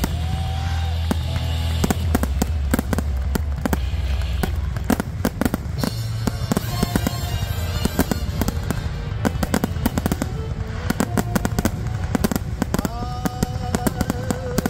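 Ground-launched fireworks cake firing a rapid volley: a dense string of sharp shots, bangs and crackles, several every second.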